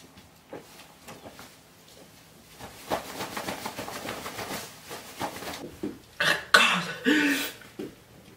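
A man coughing and breathing hard from the burn of an extremely hot scorpion pepper sauce. Near the end come loud pained vocal outbursts, including a shouted "God!".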